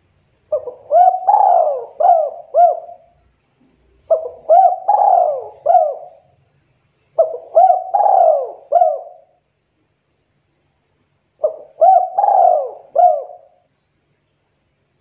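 Spotted dove (tekukur) cooing: four phrases of several notes each, with pauses of about a second between the first three and a longer pause before the last.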